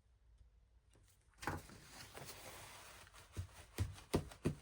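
Paper rustling as small craft paper pieces are handled, then four light taps about a third of a second apart as they are set down and pressed onto the page.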